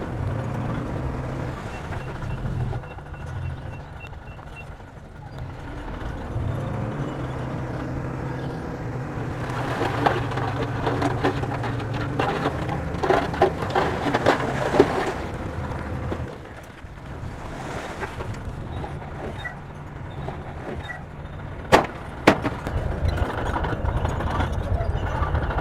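Bulldozer's diesel engine running with clanking and clattering from its tracks and blade, busiest midway through. Two sharp metallic knocks come close together near the end.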